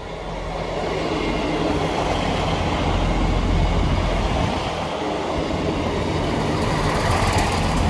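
Two coupled Class 158 diesel multiple units passing close by: underfloor diesel engines droning over the rumble of wheels on rail. The sound swells over the first few seconds as the train comes alongside, then stays loud as the carriages run past.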